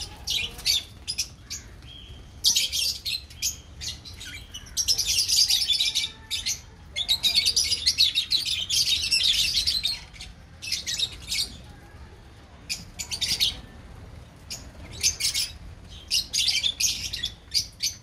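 A flock of caged lovebirds chattering: rapid, shrill, high chirps in bursts, with two longer stretches of dense chatter in the middle.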